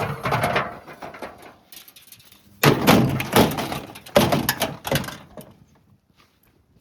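Loud knocks and clatter from a Haier washing machine with a brick inside, in two spells with sudden starts, then nearly quiet.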